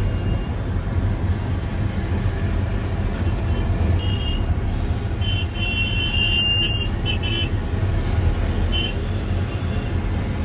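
Steady low rumble of a vehicle driving through city traffic, heard from inside it, with car horns honking several times, in short beeps and a longer run of honking in the middle.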